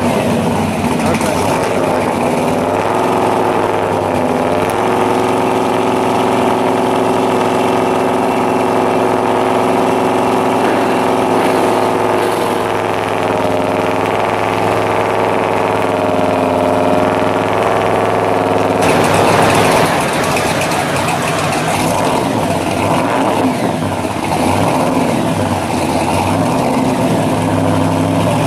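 1957 Chevrolet Bel Air pro street car's engine idling. Its note wavers a little early on, then settles, and about two-thirds of the way in it turns rougher and noisier.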